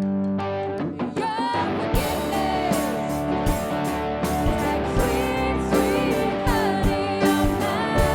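Live worship band playing: sustained chords with a singing voice over them, and a drum kit coming in with a steady beat about two seconds in.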